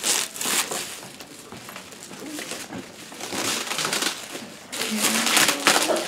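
Plastic bubble wrap being pulled and torn off a cardboard box, crinkling and rustling in uneven bursts, loudest just after the start and again near the end.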